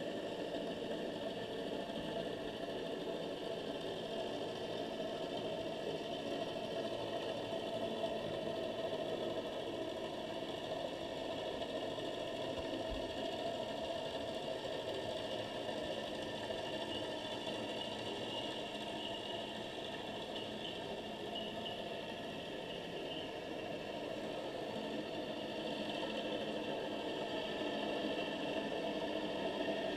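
Steady underwater background noise picked up through a seabed camera's housing, a continuous mechanical hum with no breaks or distinct events.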